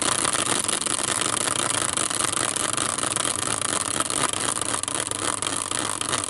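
Small caster-style prize wheel spinning freely on its metal bracket, giving a steady whirring from its axle.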